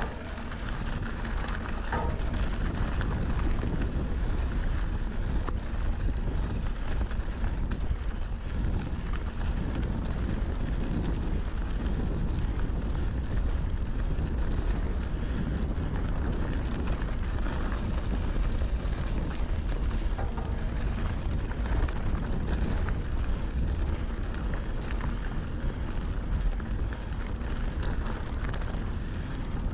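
Riding noise of a Santa Cruz Bronson mountain bike on a dirt trail: wind rushing over the microphone and tyres rolling over dirt make a steady low rumble, with small clicks and rattles. For about two seconds past the middle a high, thin squeal rings over it.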